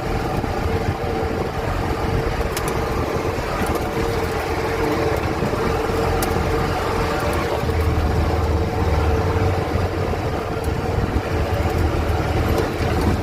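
Steyr-Puch Haflinger's air-cooled flat-twin engine running steadily while the vehicle is driven, heard from on board, with a few light rattles over the road.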